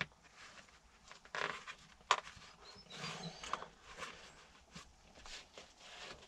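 Faint rustling and scraping of a car's sound-damper panel being worked into place by hand, with a sharp tap about two seconds in.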